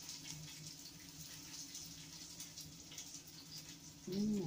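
Steady low background hiss with a faint hum. About four seconds in, a short hummed 'mm' from a person's voice, rising and falling in pitch.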